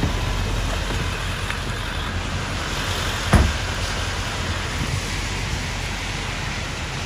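Steady rushing noise of heavy rain and wind, with a single sharp thump a little past three seconds in.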